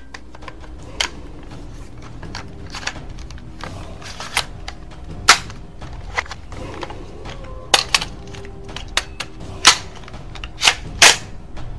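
A series of sharp clicks and snaps, about fifteen at irregular intervals, the loudest about five seconds in and twice near the end, over a steady low hum.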